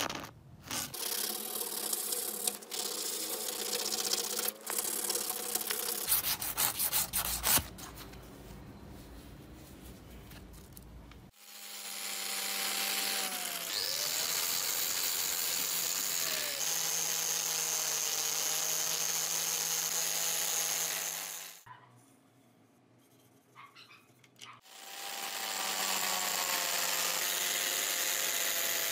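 Sandpaper rubbing on the steel of a claw hammer head for the first several seconds. Then a power tool with a spinning sanding disc runs steadily against the hammer head for about ten seconds and cuts off. After a short pause a polishing wheel runs again, its pitch falling as it winds down near the end.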